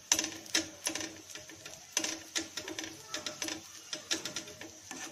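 Steel spoon tapping and pressing bread slices on a tawa griddle while they toast in ghee: a quick, uneven series of metallic clicks and taps, about two to three a second.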